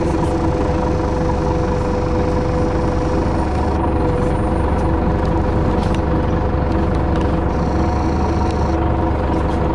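City bus engine running, heard from inside the bus: a steady drone with a few held tones over a low rumble.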